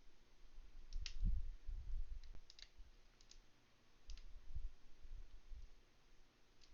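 Scattered sharp metallic clicks and low bumps as a lock pick and tension wrench work the pin stack of a Master Lock Magnum padlock while single-pin picking.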